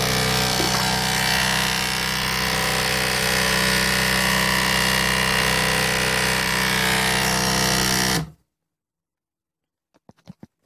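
Small electric motor running steadily with a strong hum, like a power drill, then cutting off abruptly about eight seconds in; a few faint clicks follow.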